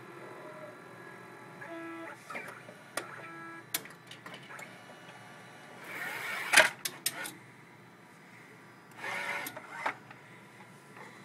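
Robotic disc-handling arm of a Rimage CD duplicator moving between its drives and bins: short whirs of its small motor and mechanical clicks, a burst of movement ending in a sharp loud clack about six and a half seconds in, and another burst of whirring around nine seconds.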